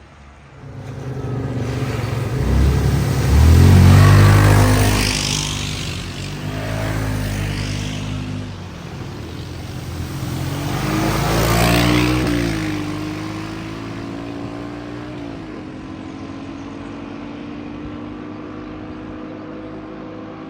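A car driving through floodwater in a ford: the engine revs up twice, loudest about four seconds in and again about eleven seconds in, with a hiss of spraying water at each push, then settles to a steady drone.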